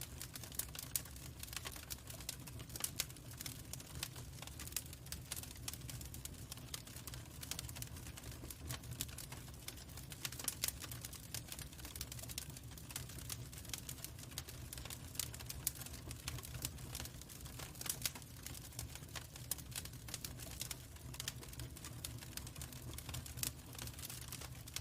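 Log fire crackling, with irregular sharp pops and snaps over a steady low rumble.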